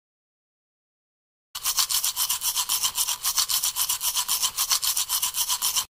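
Teeth being brushed: fast, even back-and-forth scrubbing of a toothbrush, about seven strokes a second, starting after a second and a half of silence.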